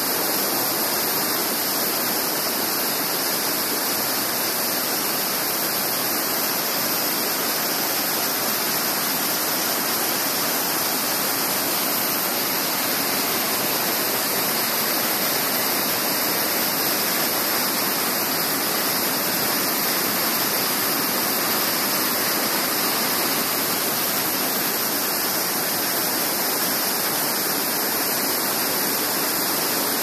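Wairere Falls, a waterfall tumbling over boulders in two streams, with a steady, unchanging roar of rushing water, more hiss than low rumble.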